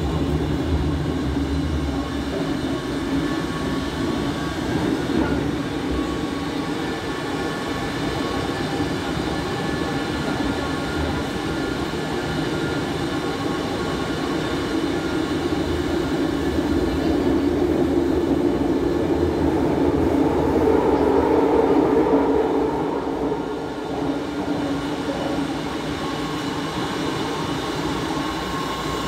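Barcelona Metro Serie 4000 train running at speed through a tunnel, heard from inside the car: a steady rumble of wheels on rail with thin whining tones. It swells about two-thirds of the way through, then drops back.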